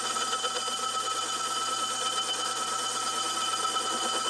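Small lathe-mill-drill turning a rusty cast-iron car brake rotor, the lathe bit cutting across the rotor face. The rotor rings with a steady high tone over the scrape of the cut and the hum of the machine.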